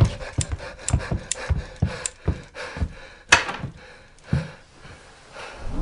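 Heavy panting breaths over a run of irregular knocks and thumps, two or three a second, with one loud breath about three seconds in; the knocking thins out near the end.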